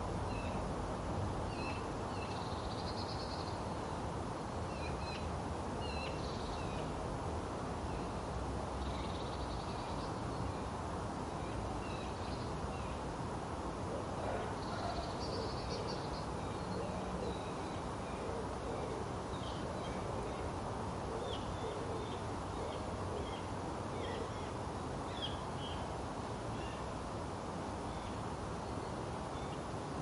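City garden ambience: a steady low hum of distant city noise, with wild birds giving many short chirps and, now and then, a harsher raspy call.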